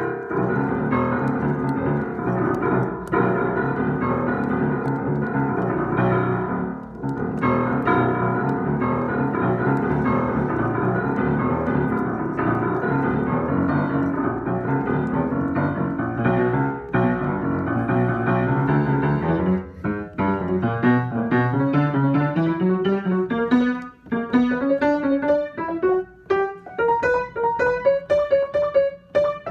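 Upright piano improvisation of a spooky piece: a dense, sustained passage in the low register, then from about twenty seconds in a figure of separate notes climbing steadily in pitch.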